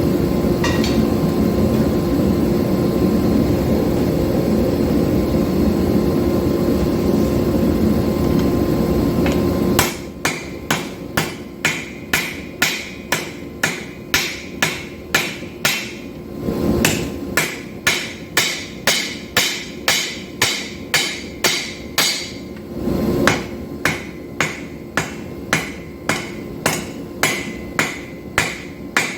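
Hammer blows on hot 5160 steel on an anvil, about two a second, evenly paced, while the stock is drawn out for an integral knife. For the first ten seconds a loud steady roar covers everything, then it cuts off suddenly.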